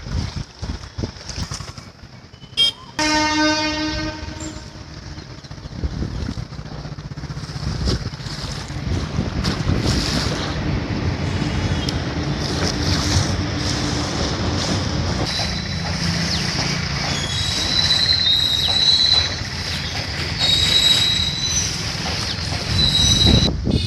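A train passing: its horn sounds for about a second and a half, about 3 s in, then the wagons run on with a steady rumble and clatter, with high, thin wheel squeals in the second half.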